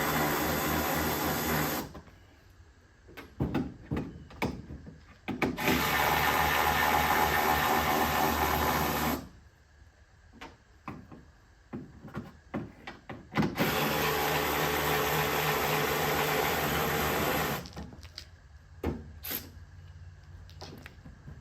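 A hand-held power tool runs in three steady bursts of a few seconds each, with clicks and knocks of metal parts being handled in the pauses between.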